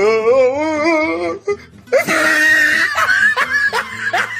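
Nigerian comedy sound-effect clips played back to back: a voice holding a wavering, sung note for about a second and a half, then a loud, harsh shrieking noise from about two seconds in, breaking into short laugh-like bursts near the end.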